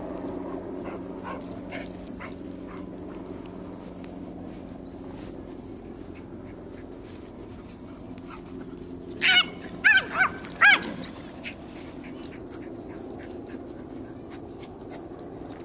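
A dog barking four times in quick succession a little past the middle, over steady low background noise.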